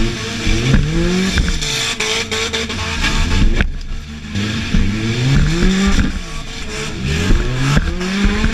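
Honda Civic hatchback's D16 four-cylinder engine revving hard, heard from inside the cabin. Its pitch climbs and drops off again about four times as the driver gets on and off the throttle, with sharp knocks and rattles over it.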